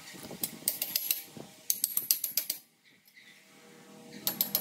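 Hand ratchet wrench clicking in three quick runs of strokes, tightening the mounting bolt of a coil-spring shock absorber.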